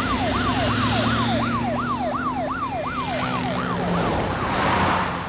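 Police jeep's siren, its pitch sweeping up and down about three times a second, fading away after about four seconds, over the engine and road noise of the moving vehicles.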